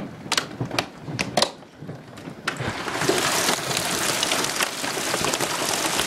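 Hailstones about the size of ping-pong balls pelting the ground and roofs: a few separate sharp knocks at first, then, about two and a half seconds in, a dense steady hiss and clatter of hail sets in.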